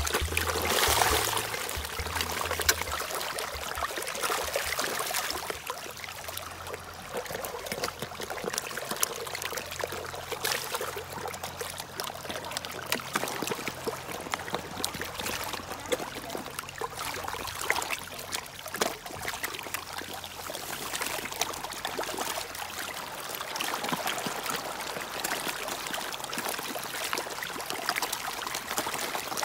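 A dense crowd of fish splashing and slurping at the surface of a pond, mouths breaking the water: a continuous wet churning made of many small splashes and smacks.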